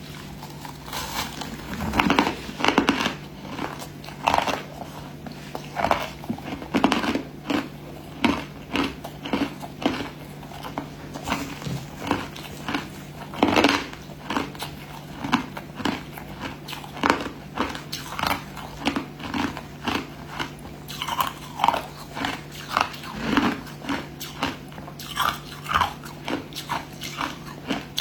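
A person biting and chewing crushed ice: a string of sharp, irregular crunches, about one or two a second.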